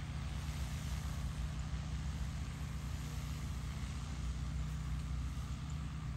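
DJI Agras T10 crop-spraying drone flying low over a rice field, its rotors giving a steady, even drone.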